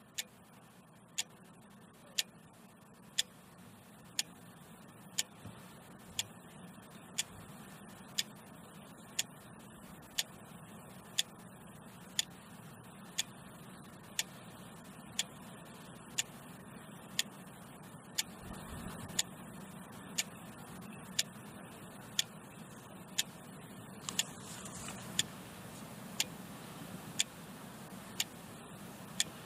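Clock ticking steadily, about one tick a second, over a faint hiss.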